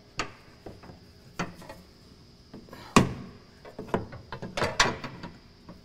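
Scattered knocks and clicks of a fuel tank's middle strap being pressed up by hand into its frame tab, the loudest a single sharp knock about three seconds in.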